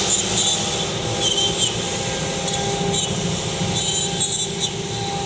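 CNC wood router at work: the spindle runs with a steady whine while the bit cuts into wood, making a scratchy rasping with brief high-pitched bursts.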